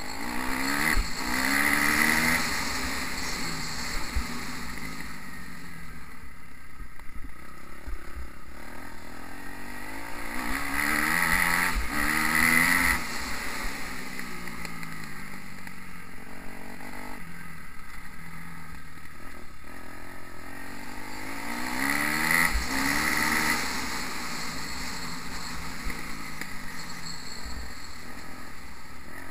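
Motocross dirt bike engine heard from the rider's onboard camera, accelerating hard three times. Its pitch climbs in steps as it shifts up through the gears, and it runs more steadily in between as the rider eases off. Occasional low thuds can be heard.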